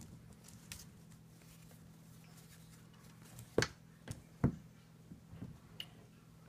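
Handling noise from a drone's Skycontroller and its neck strap: a few sharp clicks and knocks, two louder ones about three and a half and four and a half seconds in, over a low steady hum.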